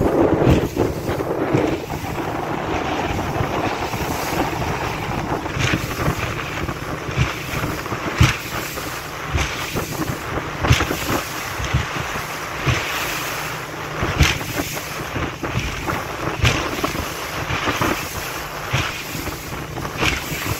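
Wind buffeting the microphone over the rush of sea water around a small fishing boat's hull, with irregular slaps of water against the hull every second or so.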